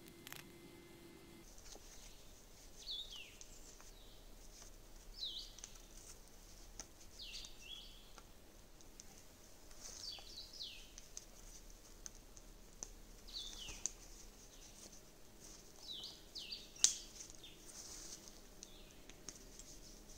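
Faint rustling and handling as nylon paracord is wrapped and pulled tight around a pole lashing. Short high chirps that sweep downward come about every two seconds, and one sharp click sounds near the end.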